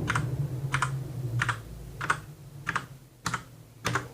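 Cherry G80-3850 mechanical keyboard with Cherry MX Brown tactile switches being typed on: separate keystrokes about one every two-thirds of a second, each a soft click.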